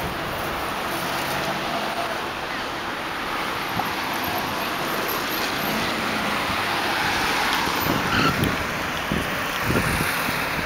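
Steady city street traffic noise heard from a moving bicycle, with a car passing close near the end. Low gusts of wind buffet the microphone in the second half.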